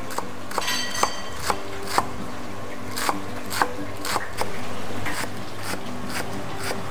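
Steel cleaver chopping a bundle of Chinese chives on a thick wooden chopping block: sharp knocks of the blade hitting the wood, about two a second.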